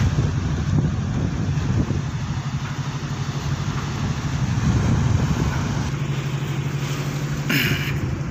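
Steady low drone of a tugboat's engine running, with wind buffeting the microphone. A short sharp noise comes near the end.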